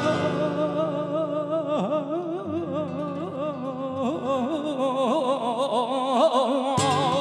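Male flamenco cante minero: a singer draws out one long wordless melisma with wide vibrato and ornamented turns, over low held guitar notes. Near the end, a flamenco guitar comes in with a sharp strummed chord.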